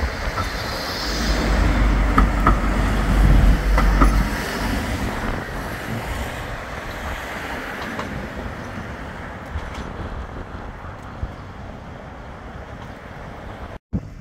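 Bombardier Flexity 2 tram passing close by: a low rumble with a few sharp clicks, loudest from about one to four seconds in, then slowly fading away.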